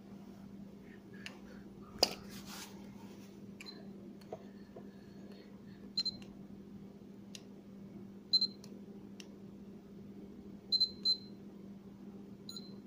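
Ultrasonic essential-oil diffuser's control board beeping: about five short, high single-pitched beeps from about six seconds in, with a few handling clicks. This is the unit powering up and answering again on its 24 V adapter after the adapter's failed capacitor was replaced. A steady low hum runs underneath.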